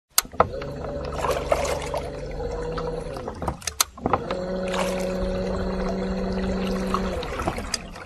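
Boat engine running steadily, starting with a sharp click. About three and a half seconds in it drops out briefly with a couple of clicks, then runs again at a slightly higher steady pitch before fading near the end.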